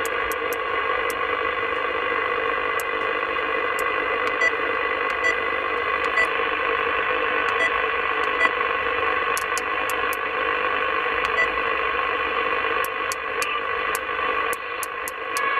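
SS 7900 CB radio on upper sideband giving out steady receiver hiss with a few faint steady whistles in it, with no voice coming through, while it is tuned across the 27 MHz band. Short clicks come now and then as the tuning knob is turned.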